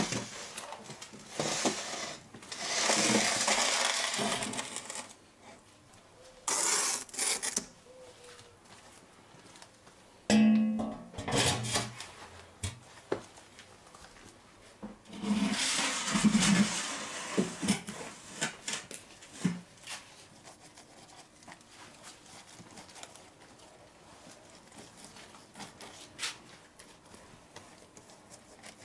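Metal baking tray scraping against the brick floor of a brick oven as a large flatbread is pushed in. About ten seconds in comes a rattling metal clatter as the oven's metal door is handled, then more scraping, then faint light taps.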